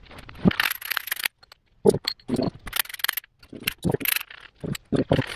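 Steel parts of an exhaust pipe expander tool clinking and scraping as they are handled and taken apart: irregular sharp clicks and knocks with a few short scrapes.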